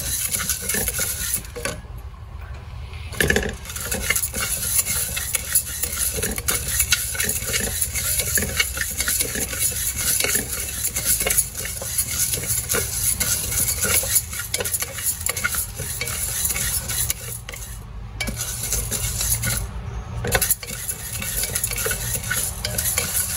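Wooden spatula stirring split moong dal as it dry-roasts in a metal pressure cooker: a steady scratchy rattle of dry lentils scraped around the pan's base.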